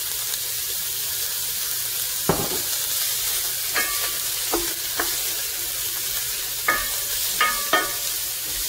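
Chopped onion and celery sizzling gently in oil in a stainless steel pan while a wooden spoon stirs them, clacking and scraping against the pan several times. There is a single heavier knock about two seconds in.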